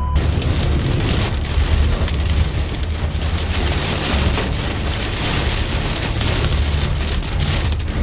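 Heavy rain hitting a moving car's windshield and roof in a thunderstorm: many sharp ticks of drops over a steady low rumble of the car on the wet road.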